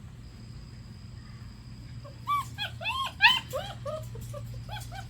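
German Shepherd puppies, five weeks old, whining and crying in a run of short cries that rise and fall in pitch, starting a little over two seconds in, several a second and sometimes overlapping; they are crying to be with their owner. A steady low hum runs underneath.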